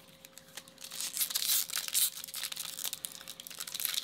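Foil wrapper of a 2021 Topps Chrome baseball card pack crinkling and tearing as it is handled and ripped open, starting about a second in after a few light taps.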